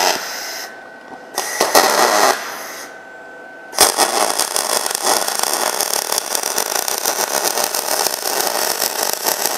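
MIG-200GP welder running standard DC (non-pulse) MIG on 3 mm aluminium plate with 1.2 mm wire under pure argon. Two short arc bursts in the first couple of seconds, then from about four seconds in a continuous crackling arc, throwing spatter.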